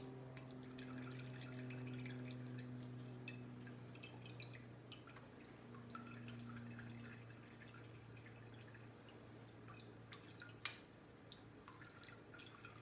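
Apple brandy dripping faintly from the strained fruit into a jar: scattered small drips, with one sharper tick near the end, over a steady low hum.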